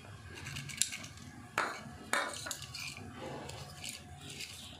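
Kitchen utensils clinking and knocking a few times: a sharp clink about a second in, then two louder knocks a little later.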